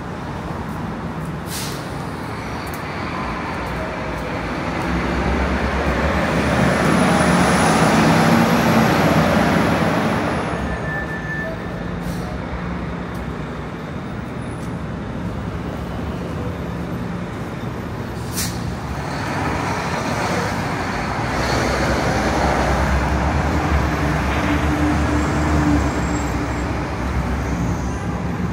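City street traffic with heavy vehicles passing. The engine noise swells twice, about a fifth of the way in and again in the second half, and a thin high whine rides over the first pass.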